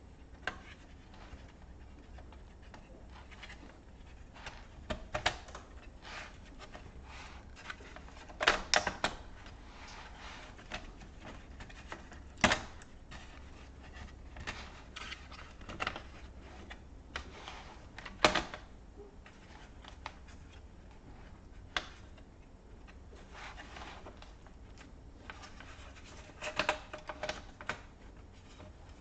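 Irregular small clicks and taps of a laptop's plastic and metal parts being handled during disassembly, with a few louder sharp knocks.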